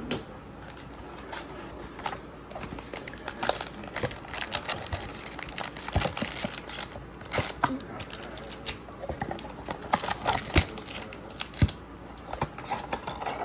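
Sealed trading-card packaging being opened by hand: irregular crackling of plastic wrap and foil with quick clicks and taps of cardboard.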